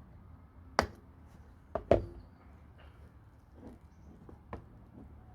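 Handling of a cheap watch box as its flaps are opened: a few sharp taps and knocks, two close together about two seconds in being the loudest, then fainter rustles and taps.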